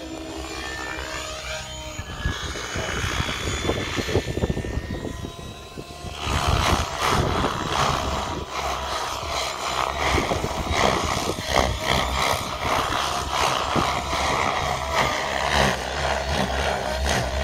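Radio-controlled 3D aerobatic helicopter flying manoeuvres overhead, its rotor and motor whine gliding up and down in pitch as it flips and pirouettes. About six seconds in, the sound turns suddenly louder and rougher, with a fluttering chop.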